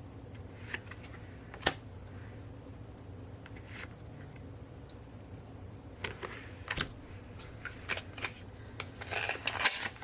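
Small card packs being handled and opened by hand: scattered clicks, crinkles and rustles of packaging and cards, sparse at first and busier in the second half.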